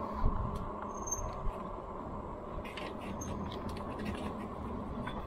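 Steady wind and rolling road noise while riding a Lectric XP e-bike, with a few faint clicks and two brief high squeaks, about a second and three seconds in.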